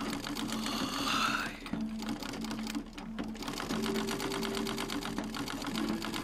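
Treadle sewing machine stitching at speed: a fast, even run of needle and mechanism clicks.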